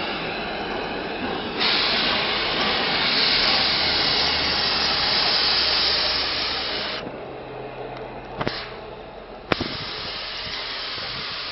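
Peppercorn A1 Pacific steam locomotive 60163 Tornado, standing, with steam hissing loudly. The hiss swells about a second and a half in, cuts out about seven seconds in, and comes back near the end. Two sharp knocks fall in the gap.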